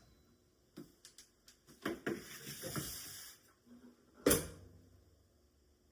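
Kitchen handling noises: a few light clicks and a knock, a brief scraping hiss, then one sharp knock about four seconds in.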